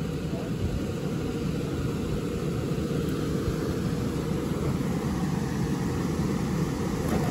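Steady low-pitched background noise with no distinct events, getting slightly louder near the end.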